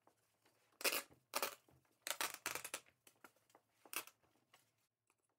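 Old upholstery fabric being ripped and pulled off its staples on a plywood chair seat: a few short tearing rasps, the longest a cluster of quick rips in the middle.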